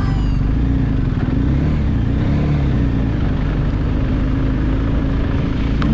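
Motorcycle engine running at a steady cruising speed: a low, steady drone with a rushing noise over it.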